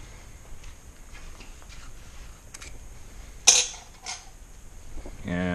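Small metal hardware and tools being handled and rummaged through, with scattered light clicks and one sharp click about three and a half seconds in.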